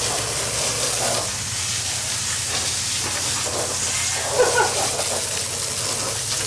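Golf cart on the move: a steady hiss of tyres and wind with a low, even hum underneath.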